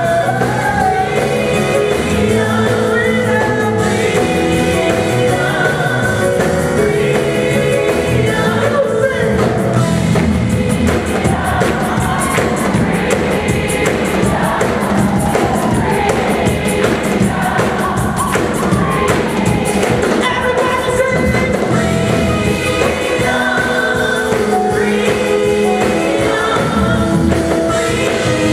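Live gospel music: several voices singing over a band of drums, keyboards and electric guitar, in a large hall.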